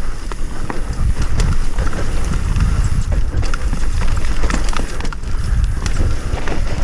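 Mountain bike running down a rough, muddy trail: a steady low rumble with many irregular knocks and rattles as the bike jolts over the ground.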